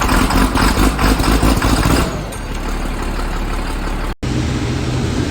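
Combine harvester running during corn harvest, a loud, noisy machinery sound that eases after about two seconds. It cuts out briefly about four seconds in and comes back as a steadier engine hum.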